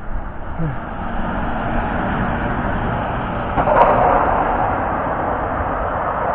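Steady rushing noise and low engine rumble of a snowplough truck passing on a snowy road, stepping up suddenly to a louder rush about three and a half seconds in.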